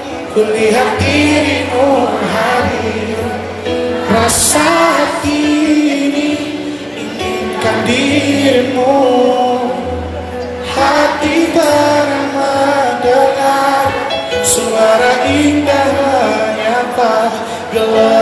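Live band with keyboard playing a pop song, apparently in a reggae arrangement, with a male singer singing into a microphone and the crowd singing along. A cymbal crashes twice, about four seconds in and again near fifteen seconds.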